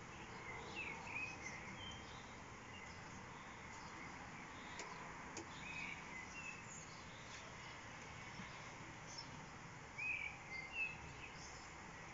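A songbird singing short chirping phrases three times, about five seconds apart, over a faint steady hiss of outdoor ambience.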